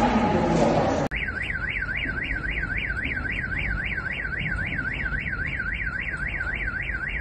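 Car alarm wailing, its electronic tone sweeping rapidly up and down about four times a second without pause. It starts a second in, right after a short stretch of voices and noise.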